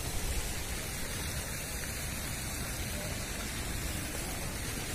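Steady rushing hiss of splashing fountain water.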